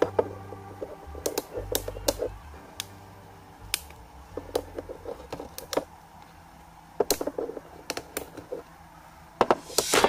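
Irregular light clicks and taps of small tools and parts being handled on a smartphone during repair, some in quick clusters, busiest near the end.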